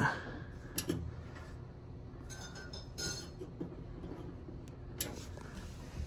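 A few light metallic clicks and clinks, one with a brief ring about three seconds in, as the boiler's tripped chimney spill switch on the draft hood is handled and pressed to reset it.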